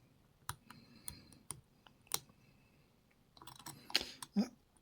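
Small sharp clicks and light metal scraping of lock picks working the pins and sliders of a Rav Bariach RB500 10-pin dimple lock, with a busier run of clicking and scraping about three and a half seconds in.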